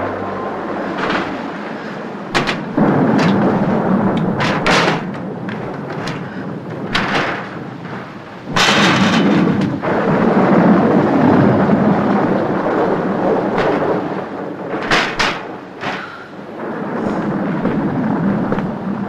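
Thunderstorm: a steady rushing noise with rumbling swells, broken by many short, sharp cracks.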